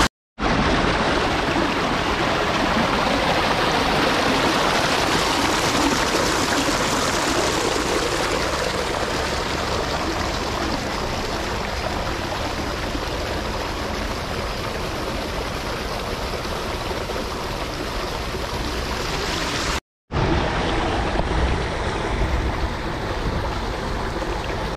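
Steady rush of running water from an artificial stream flowing over stones, broken twice by a short dropout.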